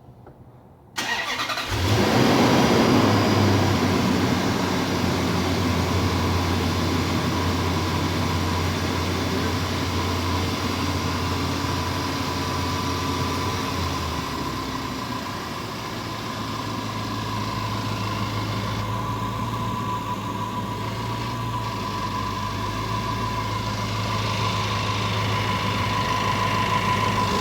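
Range Rover 5.0-litre V8 cranked and started about a second in, catching with a brief surge and then idling, its idle note shifting a little about halfway through. Over the idle runs a steady whine that grows more prominent near the end: the noise the owner takes for a bad fuel pump.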